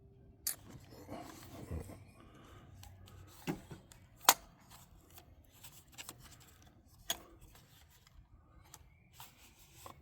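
Sharp plastic clicks and rubbing as a DJI Air 3S drone and its gimbal guard are handled, with the loudest click a little past four seconds.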